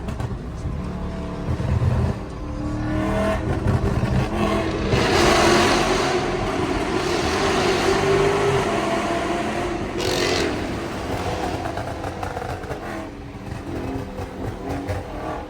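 Dodge Charger Scat Pack's 392 HEMI V8 exhaust: a low rumble, then a hard pull from about four to ten seconds in, loud, that cuts back suddenly just after ten seconds as the throttle is lifted, settling into a steadier cruise.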